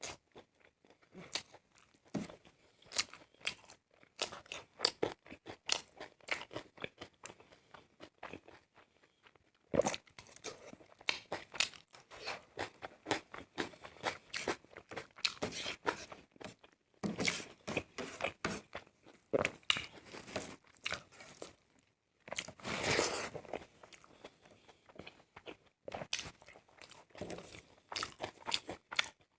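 A person chewing and crunching food close to the microphone: a steady run of irregular crunches and bites, pausing briefly a couple of times.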